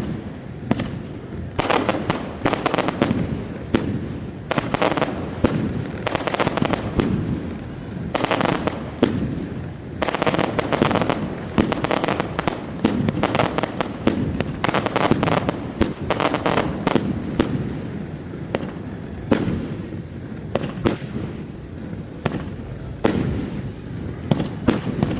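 Fireworks going off in a rapid, continuous barrage of bangs and crackles, many each second, with brief lulls between volleys.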